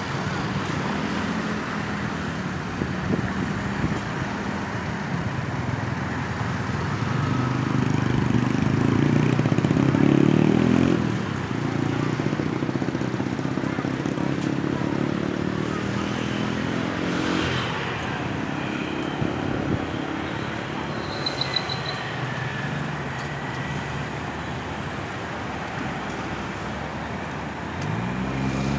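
Road traffic: engines of passing cars and motorcycles running. One vehicle accelerates past, loudest about eight to eleven seconds in.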